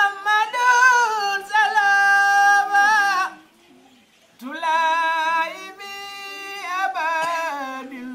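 A solo voice chanting an Arabic devotional song in long, drawn-out notes that waver in pitch. Two phrases are heard, with a pause of about a second between them.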